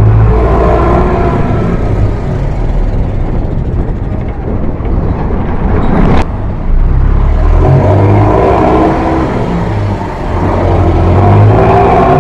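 Diesel engine and exhaust of a Mercedes-Benz OF 1418 bus running under load, its pitch climbing as the bus accelerates, easing off midway, then climbing again. A sharp click about six seconds in.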